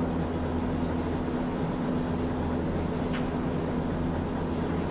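Hankai Tramway streetcar standing still, heard from inside the driver's cab: a steady low hum from the tram's onboard equipment, with light street noise.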